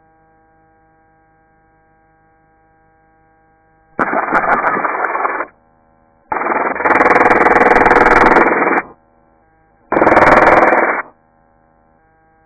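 Three bursts of full-auto machine-gun fire heard through a helicopter headset intercom, sounding boxy and cut-off in the treble: a short one, a longer one of about two and a half seconds, then another short one. A faint steady intercom hum fills the gaps between them.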